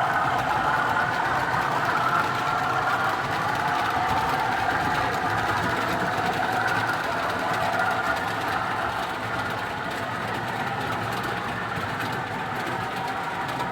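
Model train running on the layout: the locomotive's small electric motor whirring steadily with the wheels rattling along the track. It gets a little quieter in the second half, as if the train is moving away.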